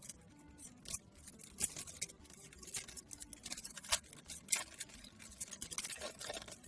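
Foil Pokémon booster pack being opened and handled: irregular crinkles and sharp crackles of the wrapper, with a few louder snaps.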